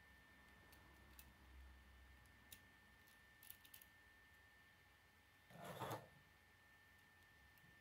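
Faint clicks of K'nex plastic pieces being handled, then a louder, brief noisy scrape about three-quarters of the way through as the wing assembly is pushed onto the K'nex car's chassis.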